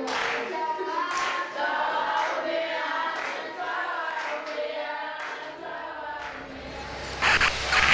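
A group of voices singing together, with hand claps. Louder music comes in near the end.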